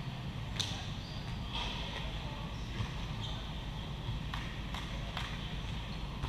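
Echoing sports-hall ambience during a volleyball game: a steady low hum, distant chatter and a few faint knocks of balls and shoes on the courts.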